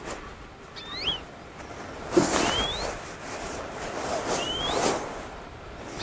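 Short, high-pitched rising squeaky calls, three of them about a second and a half to two seconds apart, over bouts of rustling and crunching.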